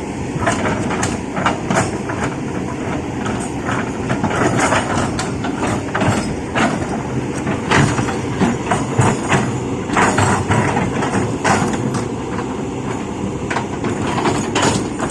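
Heavy diesel machinery running steadily, with frequent irregular metallic clanks and knocks over the engine noise.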